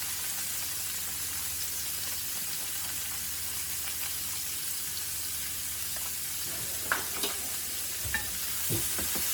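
Onion and bell pepper with taco seasoning sizzling steadily in a frying pan. A few sharp clacks of a utensil stirring them come in the last couple of seconds.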